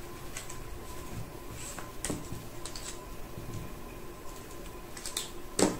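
Paper banknotes and plastic zip envelopes being handled: scattered light rustles and small clicks, with one sharper click near the end.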